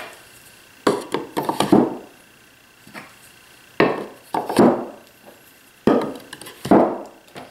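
Sharpening water stones set one after another into the plywood slots of a wooden box: stone knocking and sliding against wood, six knocks coming roughly in pairs.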